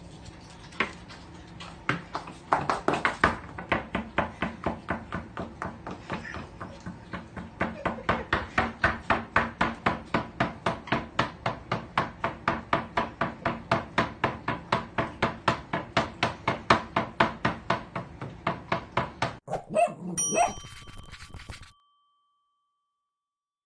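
A dog's wagging tail knocking against wooden kitchen cupboard doors in a fast, even rhythm of about three knocks a second. Near the end it cuts to a short ringing sting, then silence.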